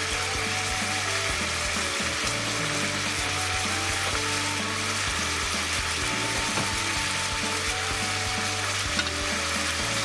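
Pork, green peppers and freshly added cabbage sizzling steadily in oil in a frying pan as they are stir-fried.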